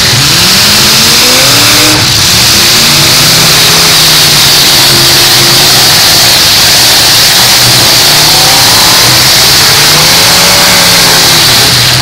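Eight-cylinder demolition derby car engines revving hard, their pitch repeatedly rising and falling over a loud, dense mass of engine noise.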